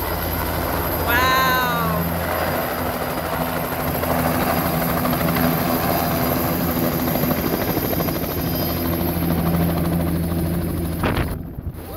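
A light helicopter with a two-blade main rotor hovers low over the landing pad and settles in, its rotor and engine making a steady, loud drone. A short high call that rises and falls is heard over it about a second in. The sound cuts off abruptly near the end.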